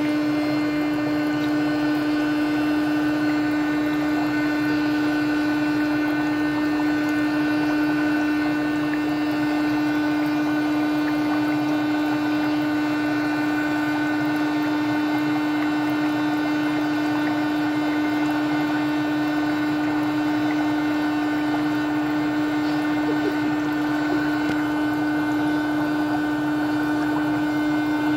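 HoMedics foot spa running its bubble jets: the motor hums steadily at one low pitch, with water bubbling and churning in the basin.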